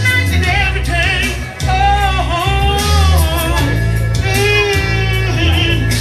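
A woman singing a gospel song into a microphone over a live band with a strong bass line and drums, amplified through a PA system.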